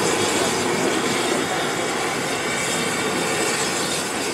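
Ivatt Class 2MT steam locomotive running light and drawing away, a steady hiss of steam from its open cylinder drain cocks over the clank of its running gear, slowly fading.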